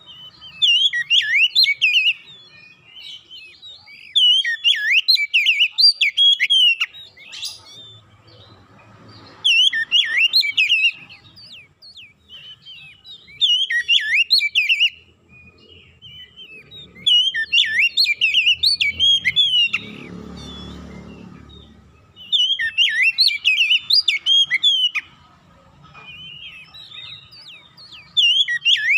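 Oriental magpie-robin (kacer) singing: about seven bursts of quick, varied whistled phrases, each a couple of seconds long, separated by short pauses. A short low rumble comes in briefly around the middle.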